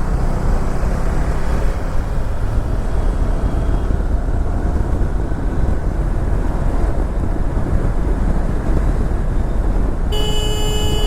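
Steady rumble of wind and road noise from a moving motorcycle, then a vehicle horn sounding one steady note for about two seconds near the end.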